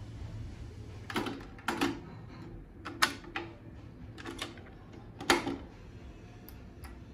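Sony TC-RX300 cassette deck being stopped and its cassette ejected and removed: a series of about seven sharp mechanical clicks and clunks from the transport, the cassette door and the cassette being handled.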